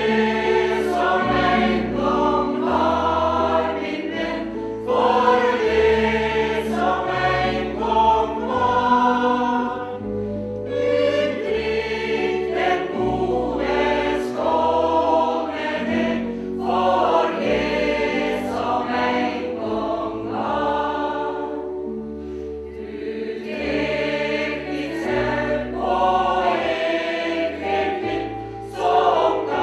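Mixed choir of men and women singing a song in harmony, with long held notes that change every second or two.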